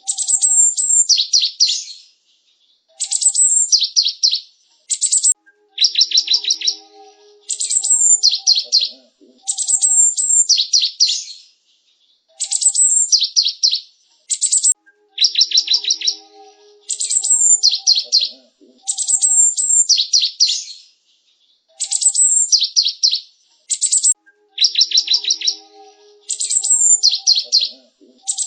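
Cinereous tit (gelatik batu) singing: bursts of rapid, high-pitched chirping notes, each burst lasting a second or two and coming about every two seconds with short pauses between.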